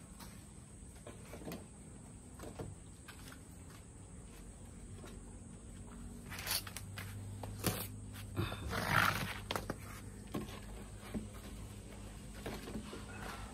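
Dry coconut palm frond stalks and wood pieces knocking and clattering as they are picked up and stacked, with a longer, louder scrape of dry frond on concrete about nine seconds in.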